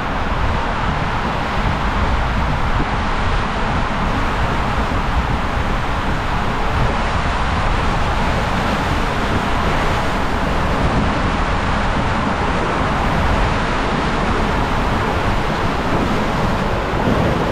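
Water rushing and an inner tube rumbling down the inside of an enclosed water-slide tube: a loud, steady rushing noise.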